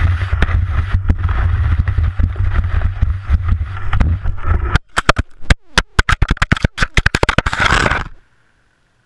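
Skis sliding fast over snow with wind buffeting the microphone, then, about five seconds in, a rapid clatter of sharp knocks and scrapes as the skier crashes and the camera tumbles. The sound cuts off abruptly near the end.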